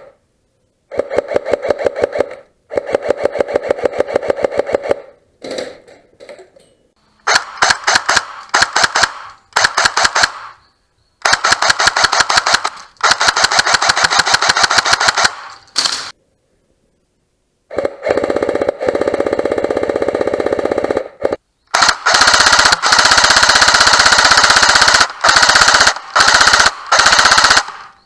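CYMA AKM electric airsoft gun firing on full auto: rapid buzzing bursts of the gearbox cycling, repeated with short pauses, the longest bursts near the end.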